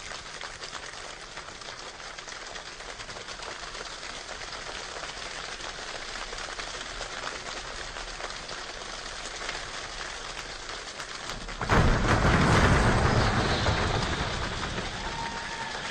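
Rain falling in a steady, even patter. About twelve seconds in it switches abruptly to a much louder, heavier rush of rain with more low rumble, which eases slightly toward the end.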